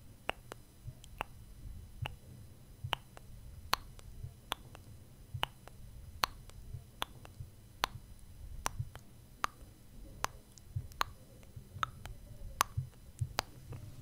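A fluffy makeup brush brushing over a foam-covered microphone, with low soft rumbling strokes and a steady series of sharp clicks about once a second.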